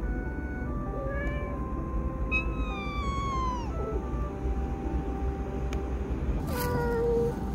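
A cat meowing three times: a short call about a second in, a long meow falling in pitch about two and a half seconds in, and another near the end.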